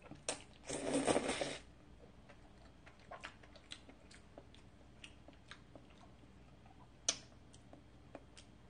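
A mouthful of cream tagliatelle slurped up, loud for about a second, then quiet chewing with small wet mouth clicks and one sharp click near the end.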